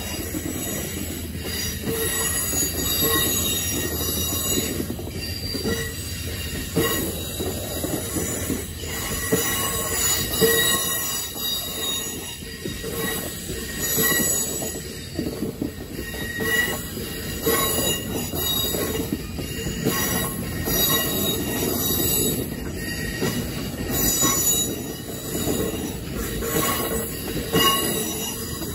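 Amtrak Auto Train's bilevel Superliner cars rolling past at speed: a steady rumble of wheels on rail with irregular clicks as the wheels cross joints and the crossing. Over it a grade-crossing warning bell rings again and again.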